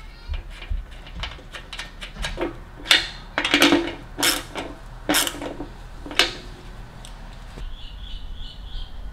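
Light metallic clicks and clinks of a washer and M6 nut being fitted onto a motorcycle seat-mounting post and tightened with a small open-end wrench, with a cluster of louder clinks and scrapes in the middle.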